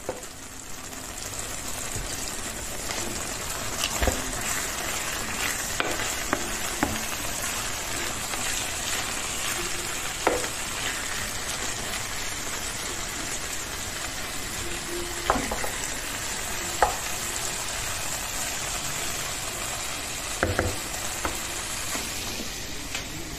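Chopped eggplant, pepper and tomato sizzling steadily in a nonstick frying pan while being stirred with a wooden spoon, which knocks against the pan several times.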